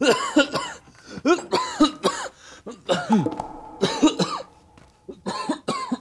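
A man coughing repeatedly, in about five separate bouts with short pauses between.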